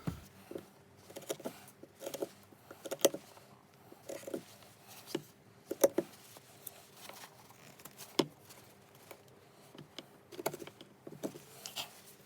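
Broc Tracker knife push-cutting green wood: irregular short scraping cuts and clicks of the blade in the wood, with a few sharper knocks.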